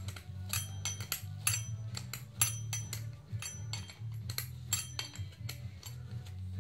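Hand wrench worked on the bolts of a gear-type oil pump: sharp metal clicks and clinks, several a second in uneven bursts. Background music plays underneath.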